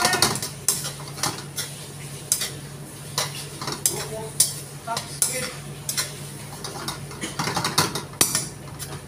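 Metal spoon clanking and scraping against a wok as food is stir-fried, in irregular strikes, sometimes several a second.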